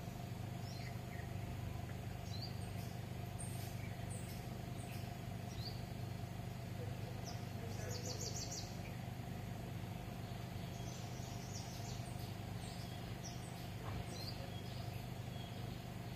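Scattered short, high-pitched animal chirps over a steady low background hum, with a quick run of about six chirps around eight seconds in.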